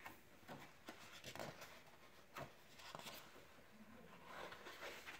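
Faint paper rustling and light irregular taps as the pages of a large picture book are handled and turned.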